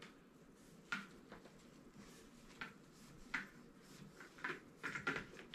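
Faint swishing of a cloth wash rag wiped along a fishing rod blank, a handful of short, irregular strokes.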